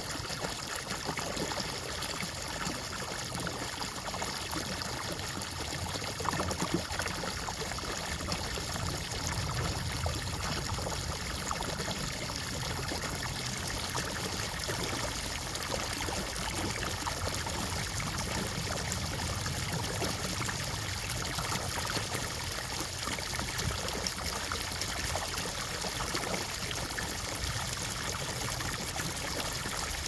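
Water welling up from a submerged pipe outlet into a shallow pool, a steady bubbling and trickling without a break.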